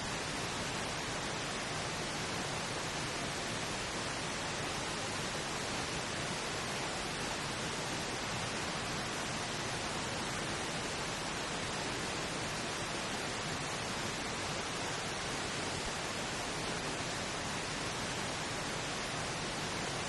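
Steady pink noise, an even hiss that never changes, serving as the masking layer of a subliminal affirmation track.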